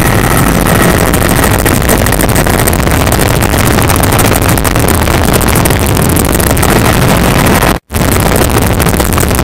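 Helicopter engine and rotor noise heard loud and steady inside the cabin in flight, with a split-second dropout to silence about eight seconds in.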